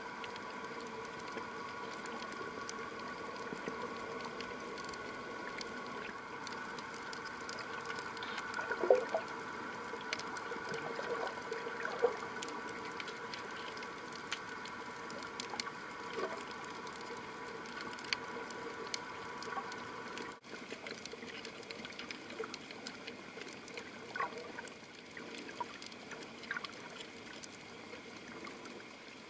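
Underwater sound picked up through a camera's underwater housing: a steady hum of several fixed tones over a faint hiss, with scattered small clicks and crackles. The hum changes abruptly about two-thirds of the way through.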